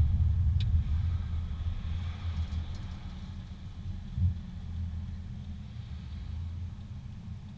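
Low rumble of a car heard from inside the cabin, engine and road noise fading as the car slows to a stop in traffic. A single click about half a second in.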